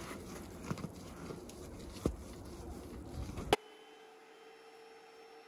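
Brush scrubbing wet, soapy plywood: bristles scraping with a few knocks. About three and a half seconds in it cuts off sharply to a faint steady hum.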